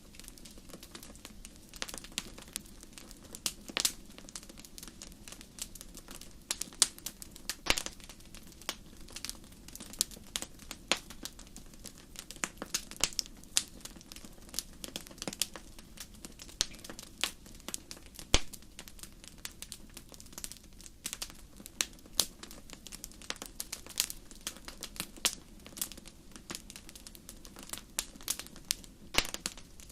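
Wood fire crackling: irregular snaps and pops, some much louder than others, over a soft, steady low rumble.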